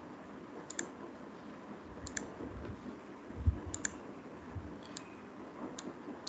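Computer mouse clicking: about five sharp clicks spread a second or so apart over a faint steady hiss, with a dull low thump about three and a half seconds in.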